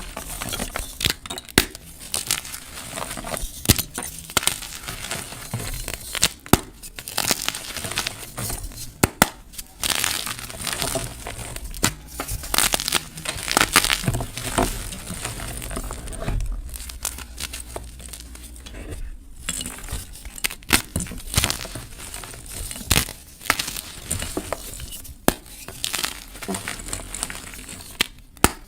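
Block of gym chalk being crushed by hand, crunching and crumbling in a dense run of sharp, crisp crackles and snaps.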